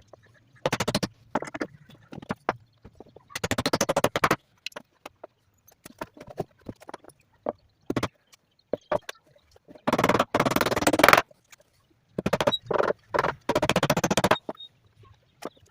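Irregular bursts of rapid clicking or rattling, each lasting up to about a second, with short pauses between.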